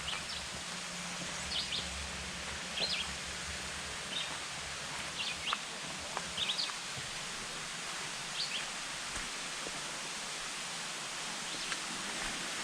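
Outdoor ambience: a steady even hiss with short, sharp high clicks or chirps about once a second.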